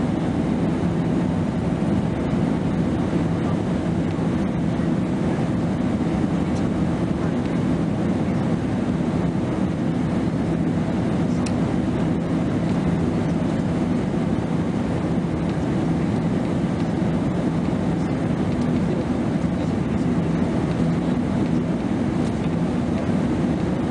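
Steady cabin drone of a Boeing 767-300ER airliner in flight: engine and airflow noise heard inside the cabin, deep and unchanging.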